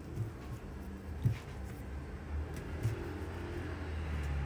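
A steady low rumble that grows a little louder toward the end, with three soft knocks from hands working pastry on a countertop.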